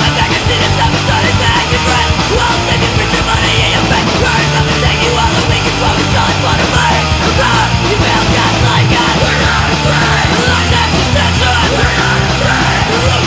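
Loud punk rock song, the full band playing under shouted vocals.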